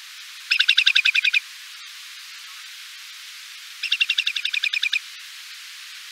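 Whimbrel calling: two rapid trills of about a dozen quick whistled notes each, the first about half a second in and the second at about four seconds, over a steady background hiss.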